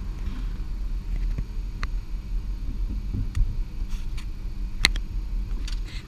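Steady low rumble of an Embraer E190's cockpit, with a few light clicks and one sharper click about five seconds in.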